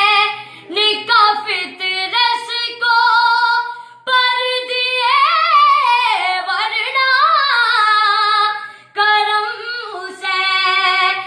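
A boy singing an Urdu salam, a Muharram devotional song, solo and unaccompanied: long held notes, a wavering, ornamented run in the middle, and short breaths about four and nine seconds in.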